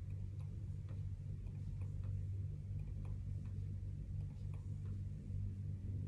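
Computer mouse clicking faintly, many short irregular clicks over a steady low hum.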